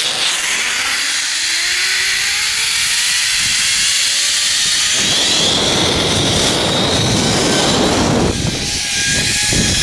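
Zipline trolley pulleys rolling along the steel cable in a whine that rises in pitch as the rider picks up speed. Wind rushes over the microphone, much heavier from about halfway through.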